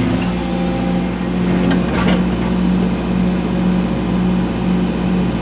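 Excavator's diesel engine running steadily under load, a constant drone, with a few light knocks about two seconds in.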